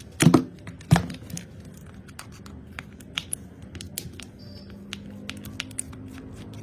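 Two sharp knocks about a second apart near the start, then scattered light clicks and taps of small objects being handled.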